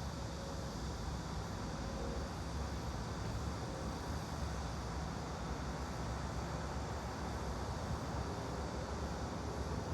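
Steady background noise, even and unbroken, heaviest in the low range: a white-noise study bed.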